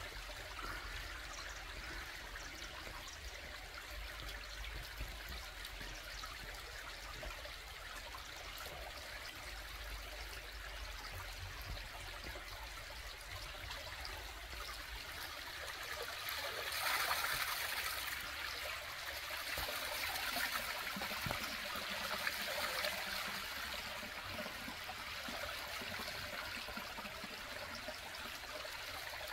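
A small stream trickling and splashing over rocks, steady throughout and louder for a couple of seconds about halfway through.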